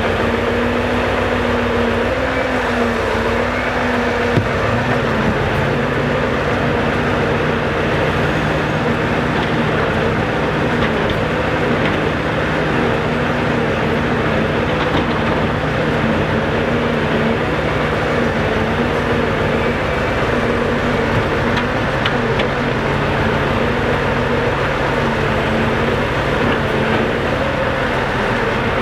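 Scania R650's V8 diesel engine running steadily to drive the hydraulics of its truck-mounted Palfinger timber crane as it loads logs. A steady whine wavers slightly with the crane's work, and a deeper tone joins about four seconds in.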